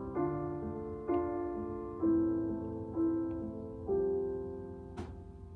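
Piano playing slow sustained chords, one struck about every second, each ringing and fading before the next; a brief click about five seconds in.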